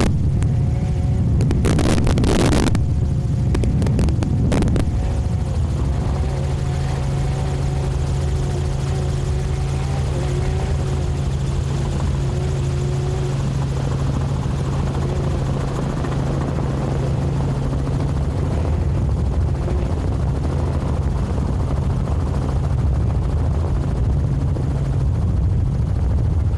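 Helicopter in flight heard from on board: a steady engine and rotor noise with a low hum. A couple of short bursts of noise come in the first five seconds.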